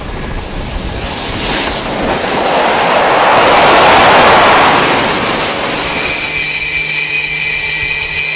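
Fighter jet engines on an aircraft carrier's flight deck: a roar that swells to its loudest about four seconds in and eases off, then from about six seconds a steady high turbine whine as a Su-33 sits running on deck.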